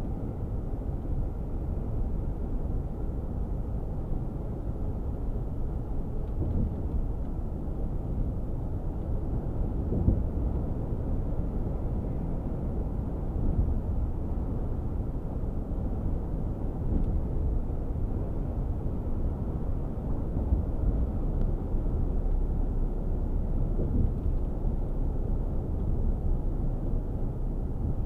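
Steady low drone inside the cab of a Mercedes-Benz Actros 1848 truck cruising on the motorway: diesel engine and tyre and road noise, with an occasional light knock from bumps, the clearest about ten seconds in.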